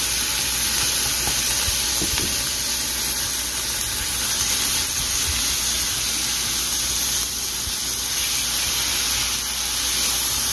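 Ground beef and diced vegetables sizzling steadily in a frying pan, stirred with a silicone spatula.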